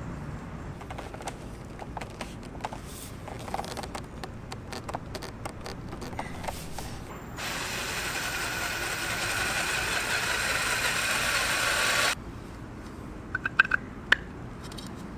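Cordless drill boring into an ABS plastic pipe end cap: it runs for about four and a half seconds, rising slightly in pitch, and stops abruptly. Before it, scattered light clicks and taps of plastic pipe fittings being handled, and a few sharp clicks near the end.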